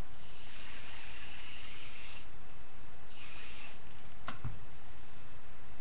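Hairspray sprayed in two bursts: a hiss of about two seconds, then after a short pause a second, shorter hiss. A single light knock follows about four seconds in.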